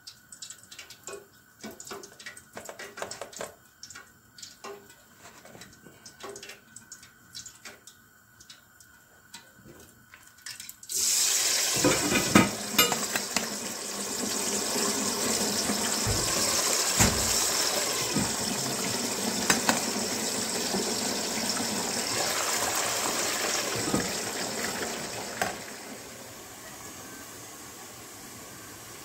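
Kitchen tap running water into a sink. It comes on suddenly about eleven seconds in after a stretch of light clicks and knocks, and is shut off abruptly near the end.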